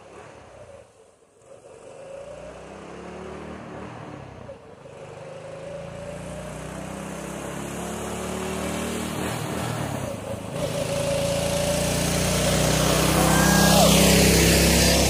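Predator 224 single-cylinder small engine driving a pickup truck at full throttle, approaching and passing close by and growing steadily louder. Its note climbs, breaks as it shifts through the gears twice, and climbs again, then drops in pitch as the truck goes past near the end.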